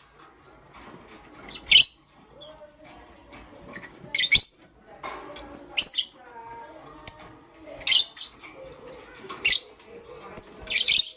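Lovebirds making short, shrill chirps, about one every second or two, with quieter chattering between them.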